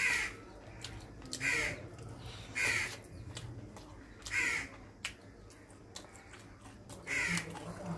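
A crow cawing, five short hoarse caws spaced one to three seconds apart.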